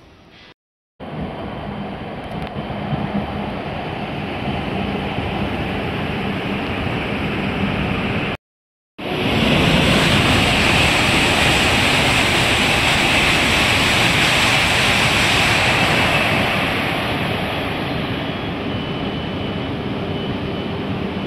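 E5-series Shinkansen running through the station at speed without stopping: a steady rushing roar that builds, is loudest for several seconds in the middle, then eases off near the end. The sound drops out briefly twice, where the recording is cut.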